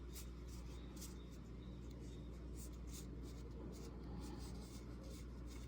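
Baseball trading cards handled and flipped through by hand: soft, scattered rustles and light ticks as the cards slide against one another, over a steady low hum.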